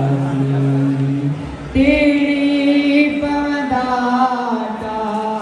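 A man singing into a microphone through a hall sound system, holding long drawn-out notes. About two seconds in his voice jumps to a higher, louder note, and later it wavers a little in pitch.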